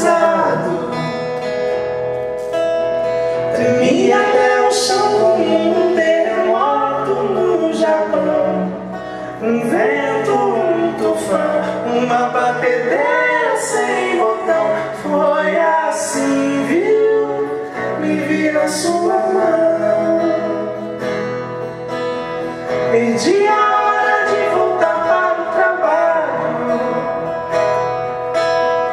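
Music: a song sung over guitar accompaniment.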